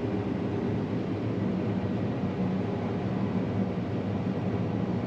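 John Deere combine harvester running at full tilt while cutting wheat: a steady, unchanging drone of engine and threshing machinery with a faint low hum.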